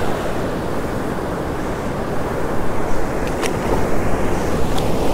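Steady rush of breaking surf and foamy wash over sand, with wind buffeting the microphone. A few faint, sharp clicks come in the second half.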